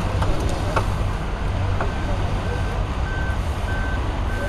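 A vehicle's reversing alarm beeping, one steady pitch at just under two beeps a second, starting about two seconds in, over a low steady engine rumble.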